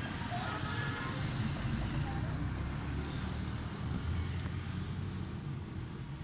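Street traffic: small motorcycles and a motor scooter riding past, giving a steady low engine rumble.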